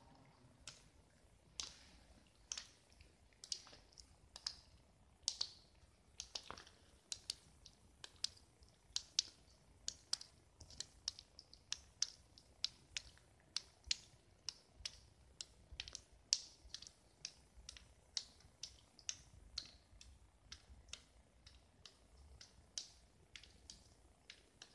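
A long run of sharp, irregular clicks, about two to four a second.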